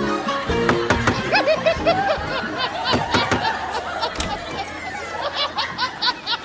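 People laughing, in quick repeated ha-ha pulses throughout, with background music fading out in the first second.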